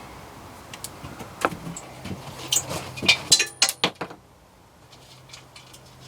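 A run of sharp small clicks and clacks as wiring connectors on an electric bike are handled and pushed together, busiest in the first few seconds and then dying away.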